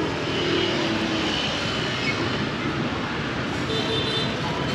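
Steady city street traffic noise.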